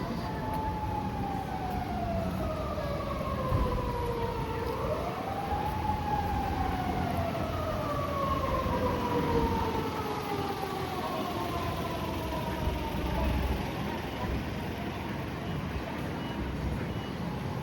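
Emergency vehicle siren wailing: a long, slowly falling tone that swings back up once about five seconds in, then falls away and fades, over steady city street noise.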